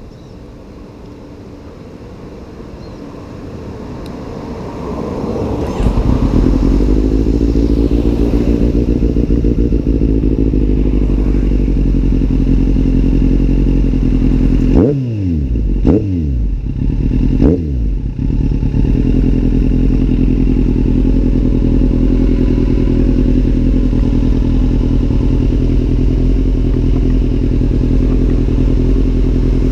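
Kawasaki Z800's inline-four engine through an aftermarket Arrow exhaust, running under way. The sound builds over the first several seconds, then holds a steady note, with three quick dips in pitch and back up about halfway through.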